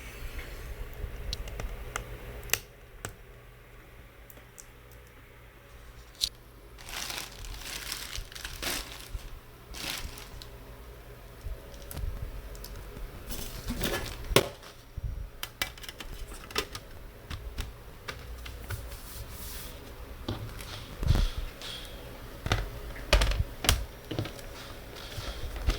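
Irregular clicks, taps and crinkling as an ASUS UX31A laptop and its small parts are handled during repair, a few sharper knocks standing out near the middle and toward the end.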